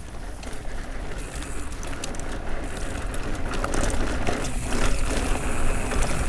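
YT Jeffsy 29 enduro mountain bike rolling down a dirt singletrack: tyre noise on the dirt, short clicks and rattles from the bike over bumps, and a low wind rumble on the microphone, all growing louder as speed picks up.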